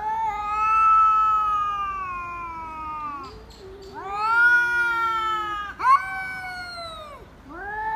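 Two cats yowling at each other face to face: several long, drawn-out, wavering yowls one after another with short gaps between them, the threat calls of a standoff between cats.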